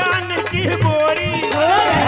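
Haryanvi devotional bhajan music performed live: a man singing over a steady, repeating low drum beat.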